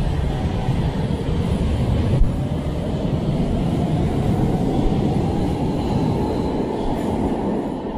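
Brussels Metro train pulling out of an underground station: the rumble of its wheels on the rails, with a motor whine that rises in pitch as it accelerates. There is a single sharp click about two seconds in, and the sound eases off near the end.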